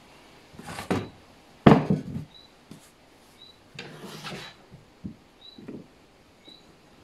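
Plywood boards being handled and set against a cabinet carcass: wood sliding and rubbing on wood, a sharp wooden knock under two seconds in, then more scraping and a few light knocks.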